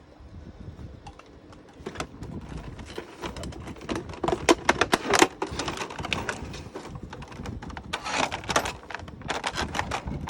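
Action-figure packaging being handled as the figure is taken out of its box: a run of irregular clicks, taps and crinkles, busiest about four to five seconds in and again near the end.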